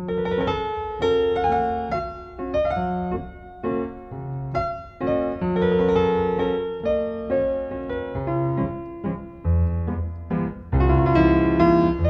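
Piano music: a melody of separate notes over lower held notes.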